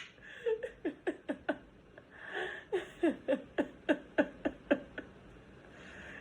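Cockatoo making a run of short, quick chirps, each sliding down in pitch, about two or three a second, with a short hiss in the middle.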